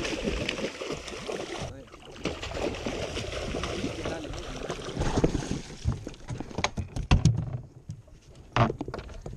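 Water splashing as a hooked king mackerel thrashes at the surface beside the boat and is gaffed. Then several sharp knocks and thuds, the loudest about seven seconds in, as the fish lands and flops on the fibreglass deck.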